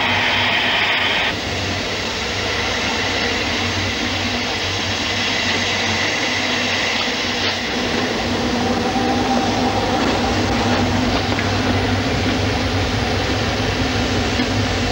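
Narrow-gauge steam locomotive: a hiss of escaping steam for about the first second, then a steady rumble and clatter of the engine working.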